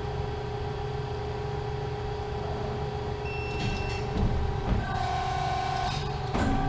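Hydraulic pump of a Hoston 88-ton press brake running with a steady hum. From about four seconds in, the note shifts and a few clunks and knocks come as the machine moves.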